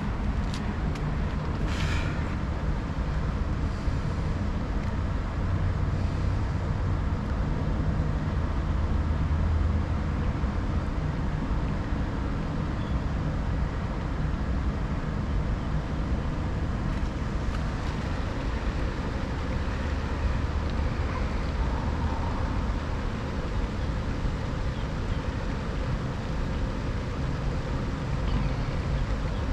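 Steady low hum of running machinery, with a few sharp clicks in the first two seconds.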